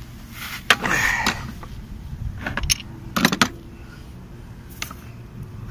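Metal parts clinking and rattling as two worn drive-belt tensioners from a Toyota 1JZ-GE engine are handled, with a few separate knocks and clicks, the loudest cluster about three seconds in. The tensioners' bushings are worn out.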